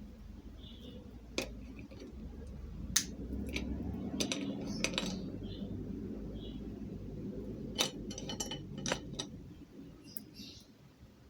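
Meat grinder grinding candy: a steady low rumble with a scatter of sharp clicks and clinks, fading near the end.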